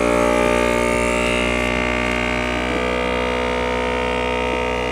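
Countertop vacuum sealer's pump running with a steady, even hum, its pitch sagging slightly over the first second or two, while the lid is held down by hand because the sealer won't pull a vacuum otherwise.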